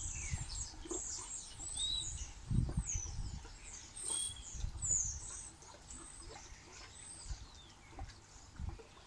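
Small birds chirping, many short high calls, thinning out after about six seconds, with low rumbles underneath.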